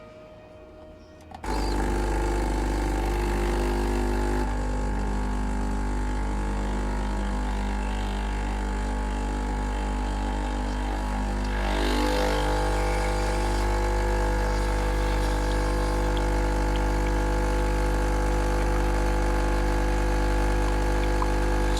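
Breville home espresso machine's pump running with a steady, loud hum, cutting in abruptly about a second and a half in, its tone shifting slightly around twelve seconds in. Background music plays underneath.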